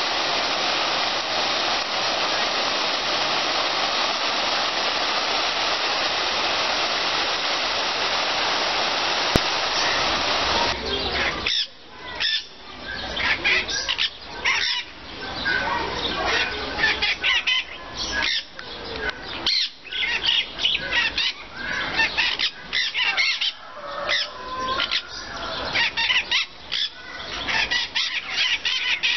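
A steady rushing noise, which cuts off about eleven seconds in. Then a busy mix of aviary birds calling, with short chirps and screeches and fowl-like clucking.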